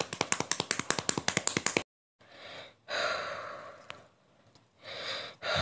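A rapid run of sharp clicks, about ten a second, lasting nearly two seconds. Then a person makes two breathy gasps, each about a second long.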